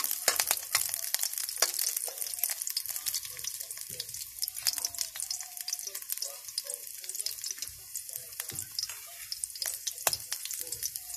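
Chopped garlic sizzling and crackling in hot oil in a metal pan, with a metal ladle stirring it near the start.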